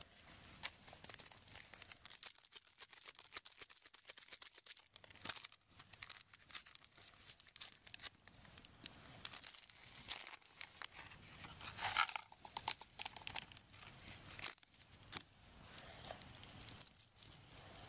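Paper and foil drink-mix packets being crinkled and torn open, an irregular crackly rustle with one louder tear about twelve seconds in.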